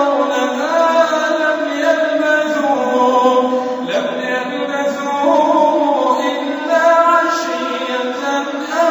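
A male reciter chanting Quranic verses in melodic murattal style, holding long notes that glide in pitch, with a short break for breath near the end.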